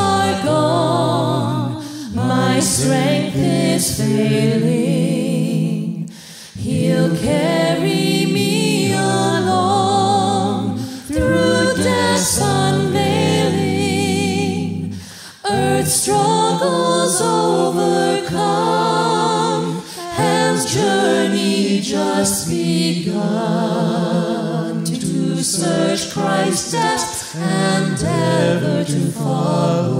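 Voices singing a slow worship hymn, several voices together with vibrato on the held notes. There are short pauses between phrases.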